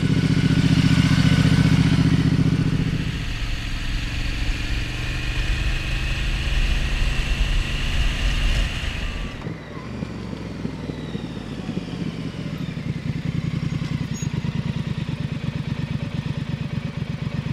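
Triumph Street Scrambler 900's water-cooled parallel-twin engine through a Vance & Hines slip-on silencer: loudest as the bike passes in the first few seconds, then running under way with a steady hiss over it. The hiss cuts off about ten seconds in, and the engine idles with an even, pulsing beat.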